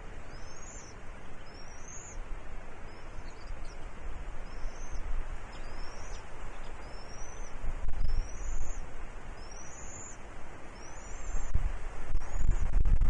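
A bird's high, short upward-sliding chirp, repeated about once a second, over steady wind noise with heavier gusts on the microphone about eight seconds in and near the end.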